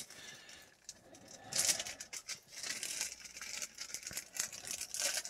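Thin plastic zip-lock bags crinkling and rustling as they are pulled open and handled, in irregular bursts that pick up about a second and a half in.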